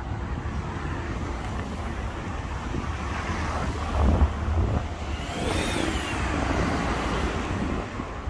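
A motor vehicle passing close by on the street, loudest about four seconds in, with a brief high tone rising and falling soon after as it goes by.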